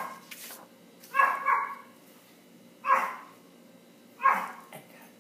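Short, sharp animal calls repeated four times, about a second and a half apart, the second one doubled.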